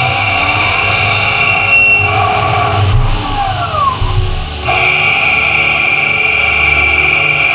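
CNC lathe running, with a steady high whine and the spindle's pitch gliding up and then down about three to four seconds in. An abrupt change comes near the middle.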